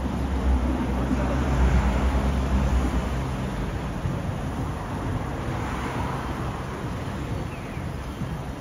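Busy city street traffic noise, with a vehicle engine's low rumble loudest in the first few seconds and then fading into the general hum.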